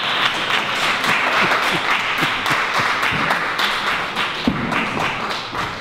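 Audience applauding: dense, steady clapping from many hands, louder than the talk before it.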